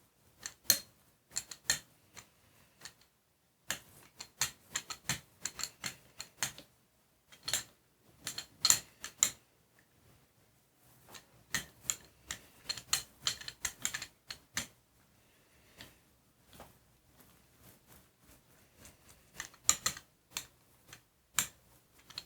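Irregular clusters of sharp clicks and taps from hands working printmaking tools and materials on a Gelli plate, with short pauses between them.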